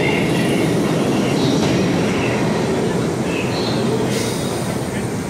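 New York City subway train running on the rails, a loud steady rumble with a few short high squeals from the wheels, easing slightly near the end.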